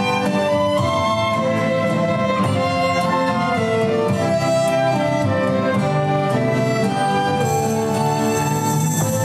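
Early-music ensemble playing an instrumental piece: violins, cello, bassoon, flute, guitar and a barrel drum together.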